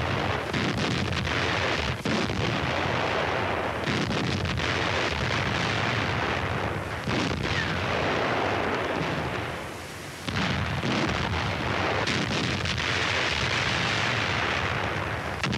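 Artillery and anti-tank guns firing and shells exploding: a continuous battle din with heavy booms every few seconds, briefly quieter about ten seconds in.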